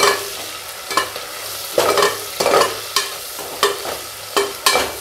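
A steel spoon scraping and knocking against the inside of an aluminium pressure cooker, about twice a second, while onions and tomatoes sauté in oil. A steady sizzle runs underneath.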